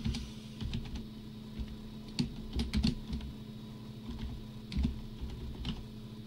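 Typing on a computer keyboard: irregular keystrokes in short bursts, over a steady low hum.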